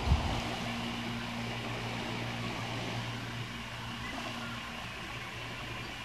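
Steady low hum of a distant engine, holding one unchanging note, over a faint even hiss.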